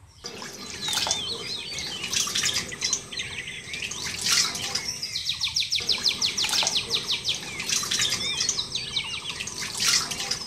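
Several birds chirping and calling, including a fast even trill lasting a few seconds through the middle, over light splashing of water.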